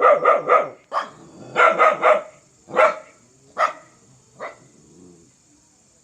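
A dog barking fiercely, first in quick runs of about three barks, then in single barks spaced further apart that grow fainter and stop about four and a half seconds in.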